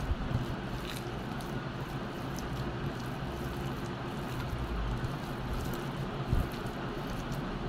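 Soft, wet squishing of boiled sour leaves and chillies being squeezed and mashed by hand on a plate, over a steady low hum.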